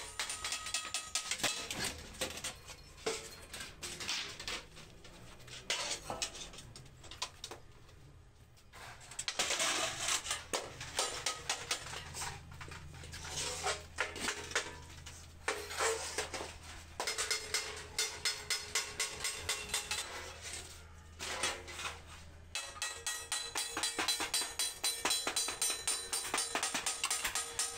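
Clanking and ringing strikes on stainless steel sheet, ending in a run of rapid, even hammer blows as a seam on a stainless steel stove cylinder is hammered closed over a stake.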